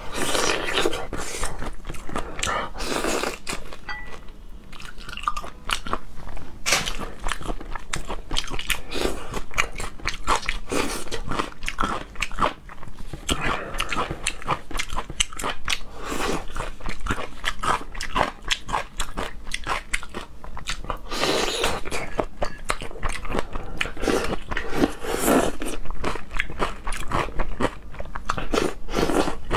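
Biting into and chewing a whole large prawn in chili sauce, shell and all, with crunching in dense, irregular runs throughout.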